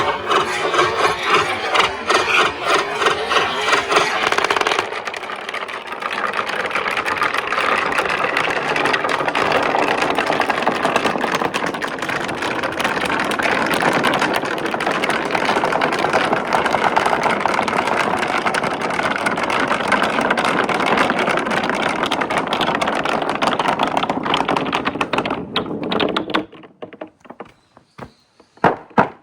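Marbles rolling down a marble run track: a rapid clatter of clicks for the first five seconds, then a steady rolling rumble that stops about 26 seconds in, with a few last clicks near the end.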